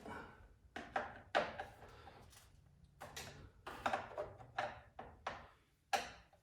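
Hands and tools working on a Stihl MS251C chainsaw during reassembly, making a series of about a dozen irregular clicks and knocks as parts and covers are handled and set in place.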